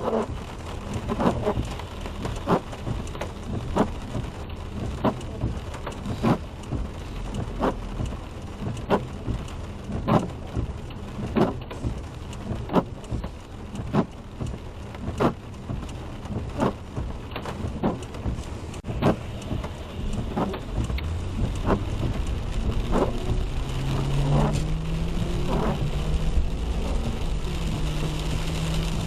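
Rain hissing on a car with windshield wipers sweeping about every 1.3 seconds. About three-quarters of the way through, the car's engine note rises in steps as it speeds up.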